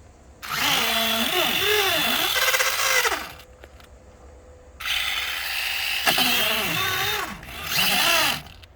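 Electric motor of an RC car whining as it revs hard, in two spells of about three seconds each, its pitch rising and falling as the throttle changes.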